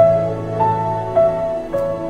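Soft instrumental background music: slow melody notes, a new one about every half second, over a held low note.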